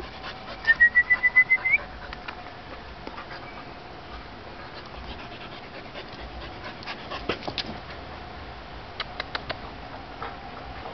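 A dog gives a short, high, rapidly pulsed whine about a second in. Later come bursts of soft clicking as the Husky puppy laps water.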